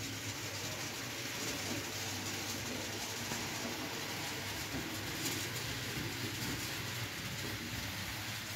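Model railway freight train running along the layout's track: a steady rolling sound of wheels on rails.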